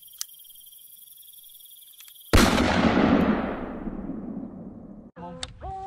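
Cricket chirping, a steady high trill with a few clicks. About two seconds in it is cut off by a sudden loud boom like an explosion, which dies away over about three seconds. A few short pitched notes start near the end.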